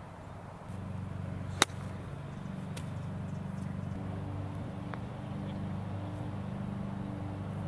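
A single sharp click about a second and a half in. A vehicle engine starts running steadily about a second in, with a low, even hum.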